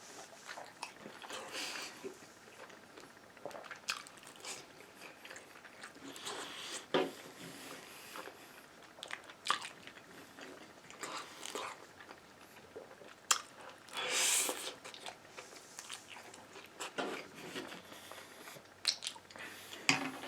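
A person chewing and biting takeout food close to the microphone, with scattered crunches and mouth clicks and a louder burst about two-thirds of the way through.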